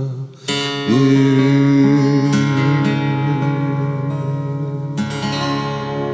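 Closing bars of a country love song: acoustic guitar chords strummed a few times, each left to ring and slowly fade out.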